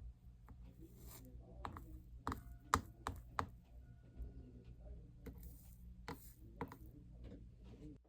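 Irregular light clicks and taps as a soldering iron and tools are worked over a copper-foiled stained glass panel, over a steady low electrical hum. The hum and clicks cut off abruptly at the end.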